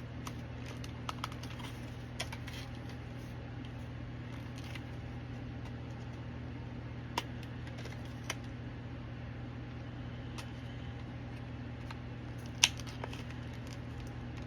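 Highlighter pen packaging being handled and pried at, giving a few scattered sharp plastic clicks, the loudest near the end, over a steady low hum.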